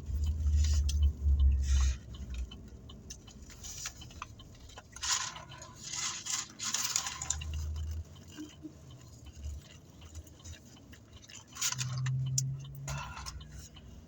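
Rustling and clattering handling noises in a parked car, coming in bursts about five to seven seconds in and again near the end, over a low rumble at the start.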